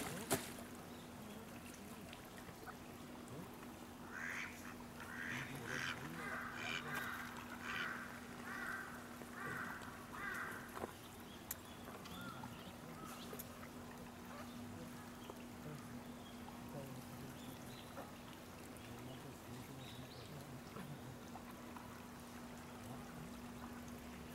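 Black swan splashing and beating its wings on the water right at the start, then a run of repeated waterfowl calls from about four to eleven seconds in, over a steady low hum.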